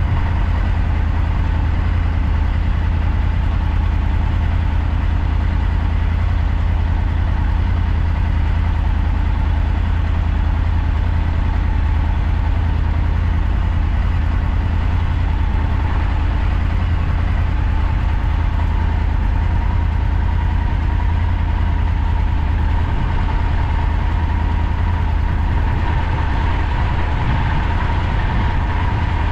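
Motorcycle engine running steadily, a continuous low rumble that does not rise or fall.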